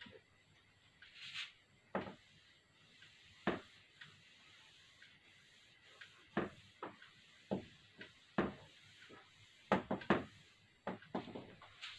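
Whiteboard being wiped clean with a cloth duster: irregular short rubbing strokes and light knocks against the board, coming closer together in the second half.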